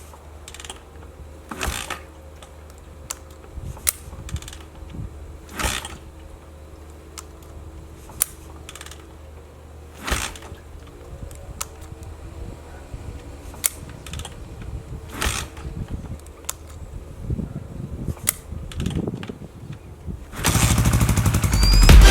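Scattered knocks and clicks of hands working on a motorcycle over a low steady hum. Near the end a much louder, rapidly pulsing sound cuts in.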